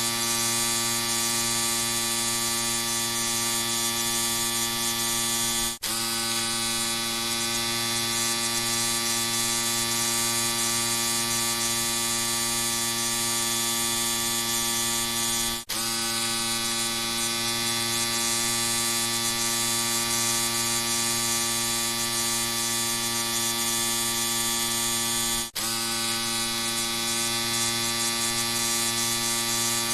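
Electric shaver running with a steady, even buzz. It cuts out for a split second three times, about every ten seconds, then resumes unchanged.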